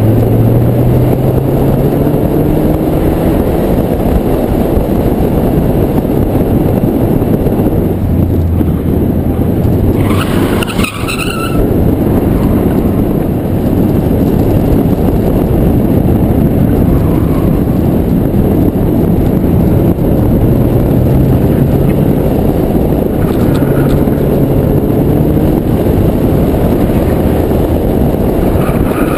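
Daihatsu Charade G102 driven hard on a course, its engine revving up and dropping back several times under a heavy rush of wind and road noise. About ten seconds in there is a brief tyre squeal.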